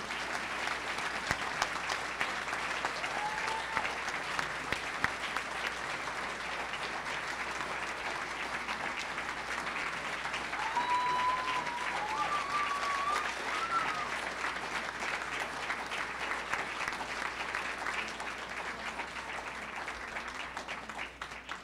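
Audience applauding steadily at the close of the ceremony, with a few cries ringing out over the clapping in the middle, fading out near the end.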